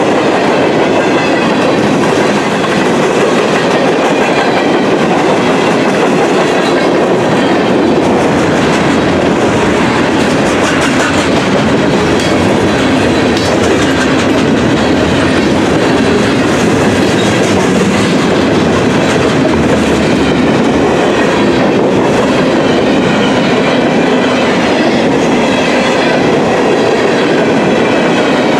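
Freight cars of a passing train rolling by at close range: steady, loud noise of steel wheels running on the rails.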